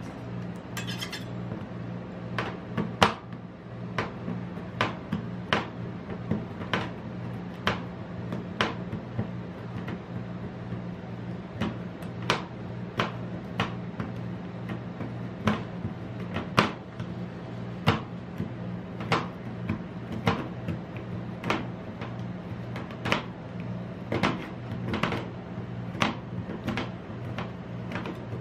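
Steel ice cream spatulas chopping a chocolate bar into cream on a stainless steel cold plate: sharp knocks of blade edge on metal, irregular, about one or two a second. A steady low hum runs underneath.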